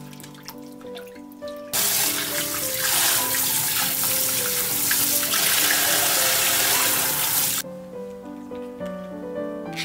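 Tap water running in a stream onto napa cabbage leaves in a steel bowl in the sink as they are rinsed, over background music. The rush of water starts about two seconds in and cuts off suddenly a couple of seconds before the end.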